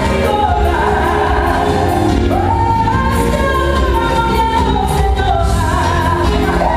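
Pop song with a voice singing a melody over a steady bass line.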